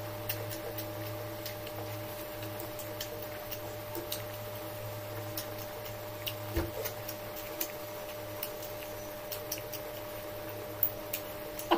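Light, scattered clicks and taps of a wooden fork handling a sausage on a wooden cutting board, over a steady low hum. There is a soft thump about halfway through and a sharper click near the end.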